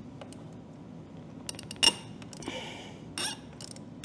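A 6 mm Allen key working the lower triple-clamp pinch bolt of a motorcycle fork as the bolt is loosened: scattered light metal clicks, one sharp loud click a little before two seconds in, and a brief scrape about half a second later.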